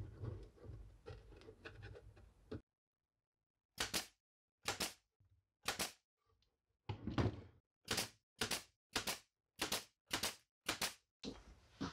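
Pneumatic nail gun firing nails into plywood: about eleven sharp shots, about a second apart at first, then quicker, about two a second.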